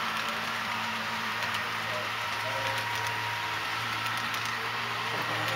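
HO scale model double-stack intermodal train rolling past, its wheels ticking faintly over the track, over a steady low hum.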